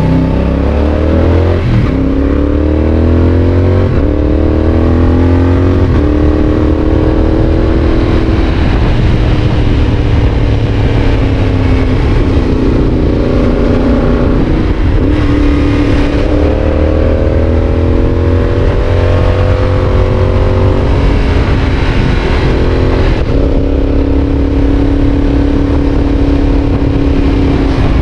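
Yamaha Tracer 7's 689 cc parallel-twin engine through a GPR aftermarket exhaust, revving up under acceleration with quick upshifts that drop the pitch suddenly several times, then rising again.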